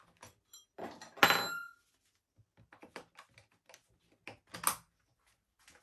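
Clicks and taps of a drill bit being swapped in a cordless rotary hammer's SDS-plus chuck. A sharp metallic clink with a short ring comes a little over a second in.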